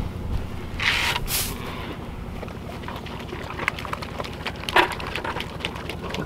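Pigs eating feed off the ground, with many small crunches and clicks as they chew and root, over a steady low rumble. A brief rush of noise comes about a second in.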